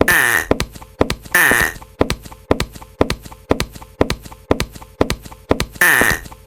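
Japanese railroad crossing (fumikiri) warning bell ringing in an even rhythm of about two strikes a second, each strike ringing out briefly. A short, higher tone sounds over it three times.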